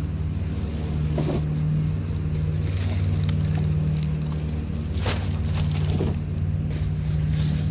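A steady low mechanical hum, like an engine running, with a few brief rustles of plastic bags being handled.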